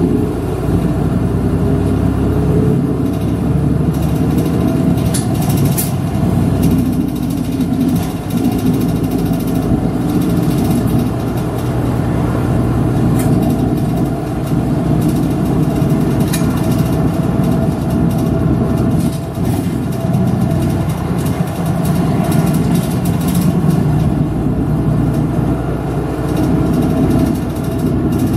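A route bus's engine running steadily under way, heard from inside the cabin, with a few sharp clicks and rattles.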